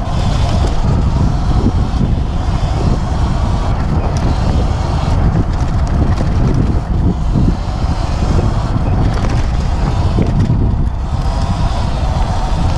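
Sur Ron X electric dirt bike riding fast along a dirt trail: wind buffeting the helmet-camera microphone with a heavy rumble, mixed with uneven knocks and rattles as the bike runs over the bumps.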